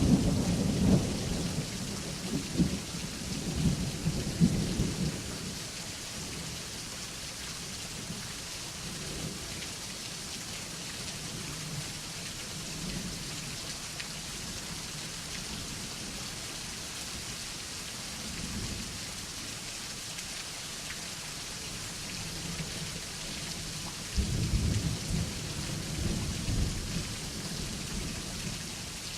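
Steady rain falling during a thunderstorm, with low rolling thunder: one rumble dying away over the first few seconds, a brief faint one midway, and another rolling in about three-quarters of the way through.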